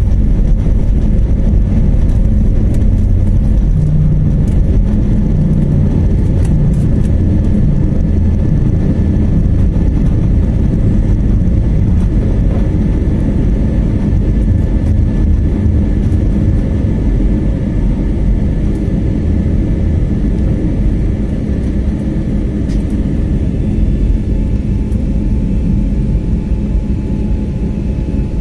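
Airliner engines at takeoff power heard from inside the cabin: a loud, steady rumble as the plane leaves the runway and climbs, easing slightly toward the end.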